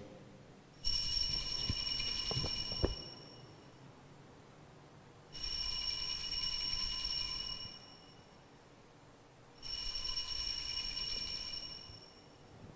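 Altar bells rung three times, each ring high and lasting about two seconds before dying away, marking the elevation of the chalice at the consecration of the Mass.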